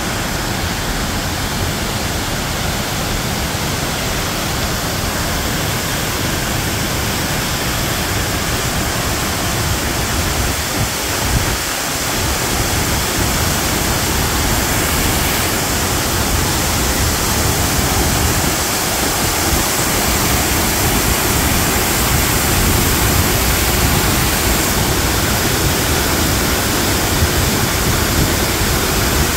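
Man-made waterfall pouring over an artificial rock wall into a pool below: a steady loud rush of falling water, growing a little louder about halfway through.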